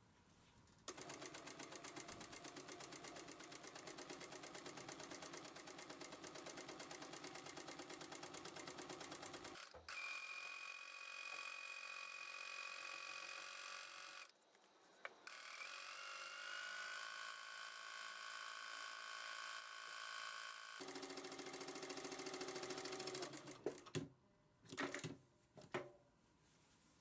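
Industrial single-needle lockstitch sewing machine stitching a fabric ruffle: a rapid needle rattle in long runs, turning to a steadier whine about a third of the way in. It stops shortly before the end, followed by a few sharp clicks.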